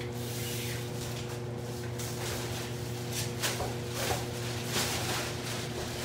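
Steady low hum of boiler-room machinery, with a few faint knocks and shuffles of movement about halfway through.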